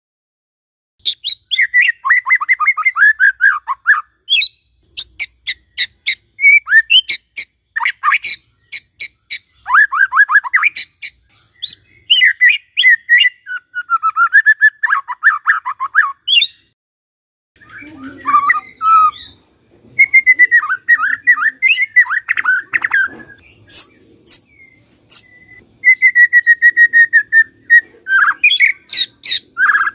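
White-rumped shama (murai batu) singing loud, varied phrases with short pauses between them. The phrases mix rapid falling runs of notes, sharp click-like notes and held whistles. A faint low background murmur lies under the song in the second half.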